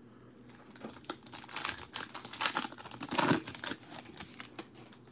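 Foil wrapper of a football trading-card pack crinkling and tearing as it is opened by hand. Irregular quick crackles come thickest about two to three and a half seconds in.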